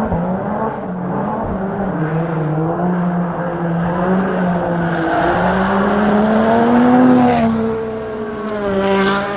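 Racing-car engine sound: a steady drone that rises in pitch at the start, then wavers up and down like revving, and cuts off abruptly right after the end.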